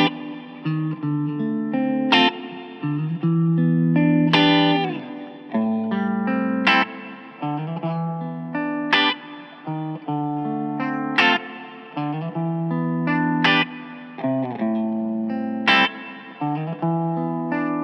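Thinline Telecaster-style electric guitar with P90 pickups played clean-to-lightly driven: a chord struck sharply about every two and a quarter seconds and left to ring, with picked notes changing in between.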